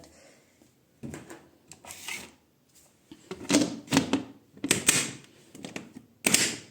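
A run of irregular plastic knocks and clicks from handling a washing machine's detergent drawer and controls, the loudest near the end.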